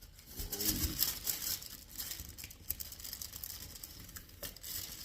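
Tear-off seal strip on a smartphone box being pulled and torn away, with crackling and rustling of the strip and packaging.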